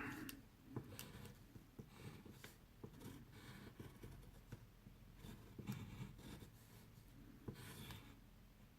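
Faint scratching of drawing on paper, broken by scattered small taps and ticks.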